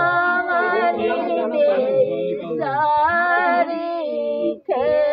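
Women's voices singing a dehati (rural folk) song for the ritual planting of the bamboo, unaccompanied, in long drawn-out gliding phrases, with a brief pause for breath near the end.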